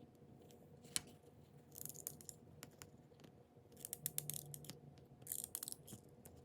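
Faint scraping and clicking of a tool working the heated plastic layers off a metal credit card, in short scratchy spells, with one sharp click about a second in.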